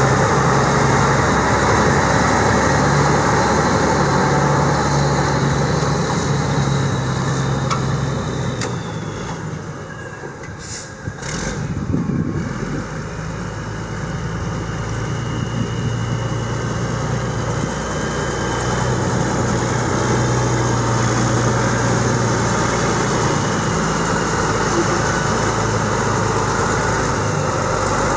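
Caterpillar 3406 14.6 L inline-six diesel in a semi truck running steadily at idle. It drops in level for a few seconds around the middle, with two short sharp sounds about eleven seconds in, then settles back to the same steady idle.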